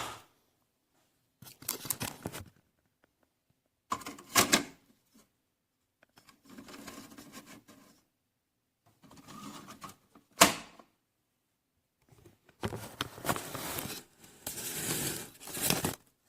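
Handling noises: a series of clicks, knocks and rustles in short bursts, with a sharp click about four and a half seconds in and another about ten and a half seconds in, and a denser run of clicking and rustling near the end.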